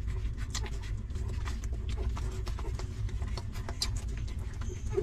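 Newborn puppies suckling at their mother's teats: a quick, irregular run of small clicks and smacks, with a steady low rumble underneath.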